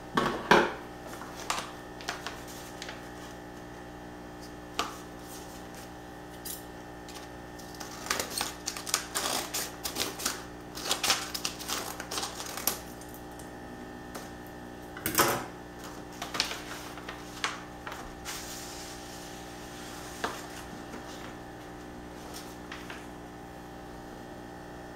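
A paper envelope being handled and cut open with scissors: irregular clusters of sharp paper crackles, rustles and snips, mostly through the middle, over a steady electrical hum.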